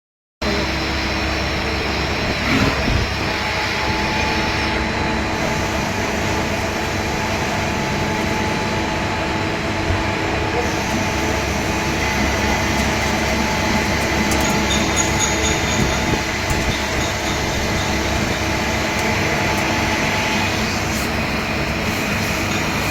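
Steady machine-shop noise, likely CNC machining: a continuous dense mechanical noise with a faint steady whine running through it.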